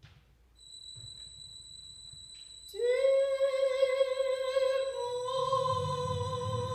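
A steady high electronic tone sounds alone at first; about halfway through, a soprano comes in through a microphone with one long held note that wavers slightly. Near the end, a low electronic rumble joins beneath the voice.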